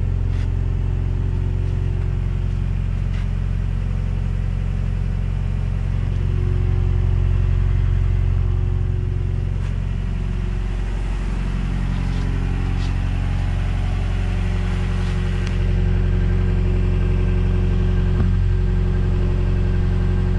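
Toyota pickup truck's engine idling steadily.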